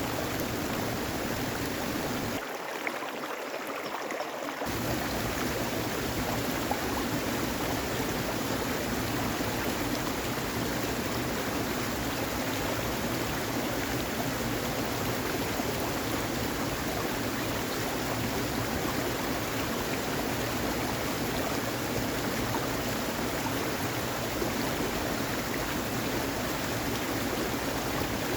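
Steady rushing water noise. It thins briefly for about two seconds, roughly three seconds in.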